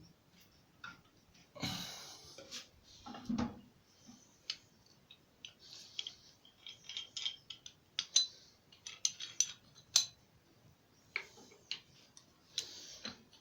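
Scattered metallic clinks, clicks and knocks of hands working with tools and plumbing fittings, with a few short scraping rustles in between.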